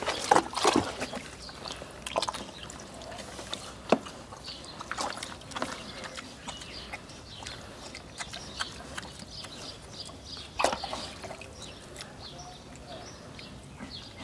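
Potbellied pig wading in a plastic paddling pool, water sloshing and splashing around its legs and snout in irregular splashes, the loudest in the first second, around four seconds in and near eleven seconds in.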